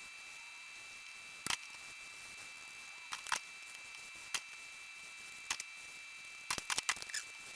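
Scattered sharp clicks and small knocks, single ones a second or so apart and then a quick cluster of several near the end, over a faint steady high-pitched hum.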